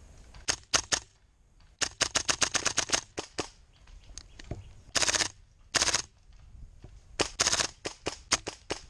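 Gas-blowback airsoft rifle fire: sharp pops in quick strings. A few shots come first, then a rapid run of about eight about two seconds in, two short full-auto bursts around five and six seconds, and another rapid string near the end.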